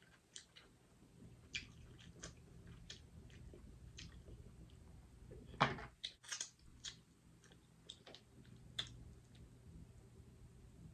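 Close-miked chewing and wet mouth smacks of someone eating, with scattered short clicks, the sharpest about halfway through.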